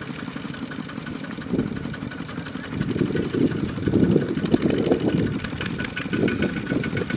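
Small single-cylinder diesel tractor engine running with a steady, rapid chugging beat, its rumble swelling and easing from about three seconds in.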